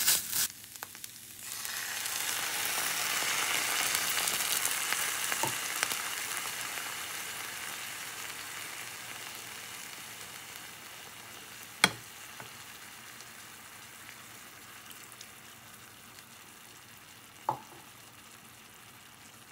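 Grated carrot, onion and tomato paste sizzling in a frying pan. About a second and a half in, water poured into the hot pan makes the sizzle jump up loud, then it slowly dies down as the sauce begins to stew. Two short sharp knocks, later on.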